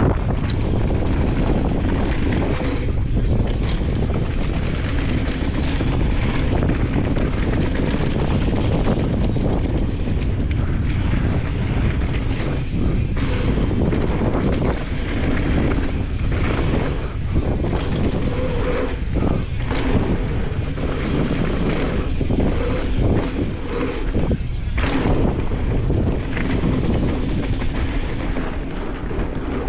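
Mountain bike descending a dirt flow trail: steady wind buffeting on the GoPro's microphone over the rumble of the tyres, with scattered clicks and rattles from the bike.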